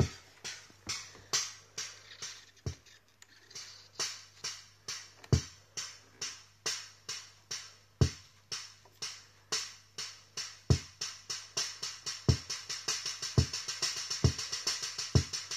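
Eko 18A Tivoli electronic organ's built-in rhythm unit playing an electronic drum pattern: a steady run of high ticks with a low thump every couple of seconds. The tempo slider is pushed up in the second half, and the beat speeds up until it runs fast. A steady low hum lies underneath.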